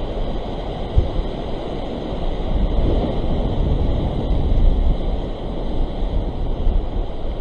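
Sea surf surging and washing over rock ledges, with wind rumbling on the microphone and a brief low bump about a second in.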